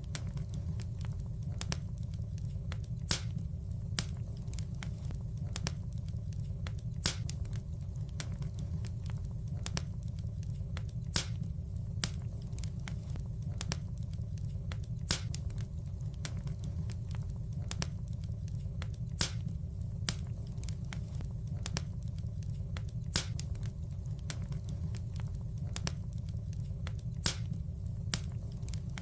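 Wood fire in a fireplace crackling: sharp pops every second or two over a steady low rumble of the burning fire.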